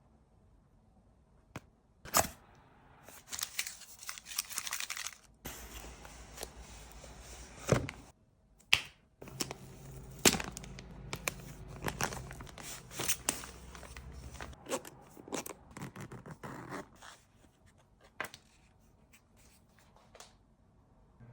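Packaging being opened and handled: tearing and rustling of wrapping and cardboard, with scattered sharp clicks and knocks. It starts about two seconds in and dies down for the last few seconds.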